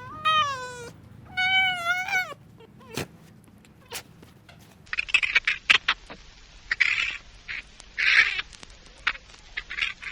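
A cat meowing twice: two drawn-out calls, each falling in pitch. From about five seconds in there is a run of short hissy bursts and sharp clicks.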